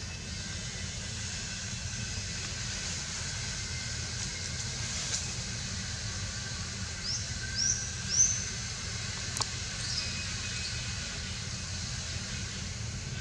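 Outdoor ambience: a steady low rumble and hiss, with three short, high rising chirps about seven to eight seconds in, a sharp click a second later and two fainter chirps soon after.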